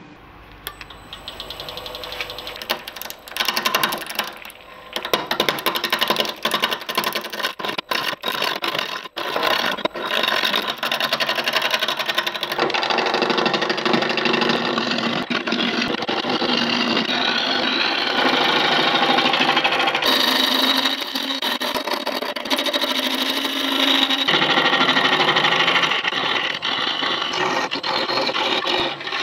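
A turning tool cutting into an out-of-round apple burl log spinning on a Laguna 18/36 wood lathe, roughing it down to a cylinder. After a few seconds of handling clicks, the cut comes on as loud, rapid knocking chatter against the uneven log. From about twelve seconds in it settles into a steadier cutting noise.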